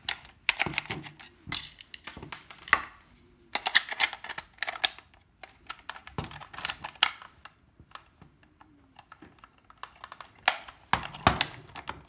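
Hard plastic parts of a Nerf blaster clicking and clacking in irregular bursts as the repaired priming handle is fitted back on and the blaster reassembled.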